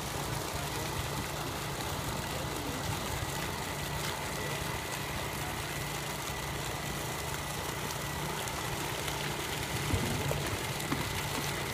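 Truck-mounted water pump unit running steadily: a constant low hum with a faint high whine over it. A couple of light knocks near the end.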